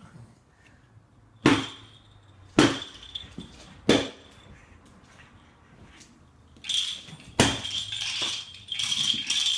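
A young dog banging an object about: three loud, sharp knocks with a ringing clink, then a run of clattering and rattling with another hard knock in the middle of it.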